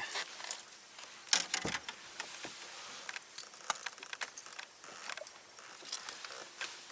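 Fishing rod and tackle being handled: scattered light clicks, taps and rattles, with a louder knock about a second and a half in.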